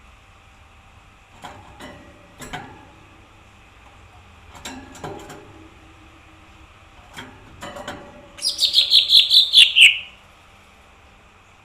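Small green leafbird (cucak ijo mini) singing a fast run of about a dozen sharp chirping notes that fall in pitch, near the end, after scattered light clicks and taps.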